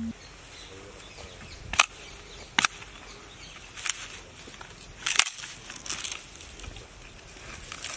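Dry sticks and palm fronds being snapped and crushed by hand: a few sharp cracks with softer crackling between them, the loudest snap about five seconds in.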